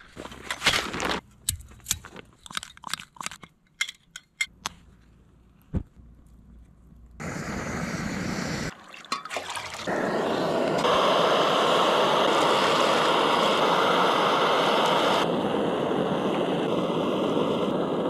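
Camping cookware and gear handled with a run of sharp clicks and knocks. Then a small camp stove heats a pot of water with a loud, steady rushing noise.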